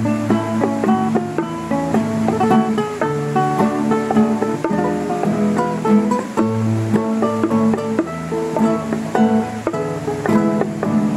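Instrumental music on several acoustic guitars: a quick plucked melody over chords, with low bass notes underneath.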